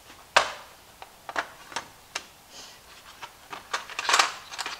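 Clicks and light knocks of hands handling tools and small items on a plywood workbench. The loudest is a sharp click just after the start, and a brief rustling scrape comes about four seconds in.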